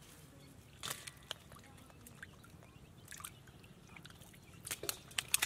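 Small splashes and sloshes of shallow muddy water as bare hands grab wriggling catfish, a few scattered bursts with a quicker cluster near the end.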